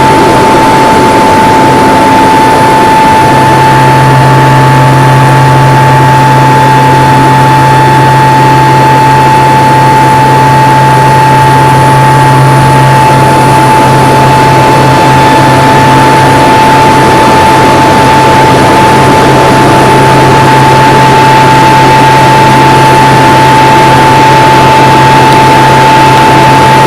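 Loud, steady engine and propeller drone heard inside a small aircraft's cockpit during aerobatic flight, with a constant high-pitched tone over it. A deeper hum sets in about three seconds in and holds.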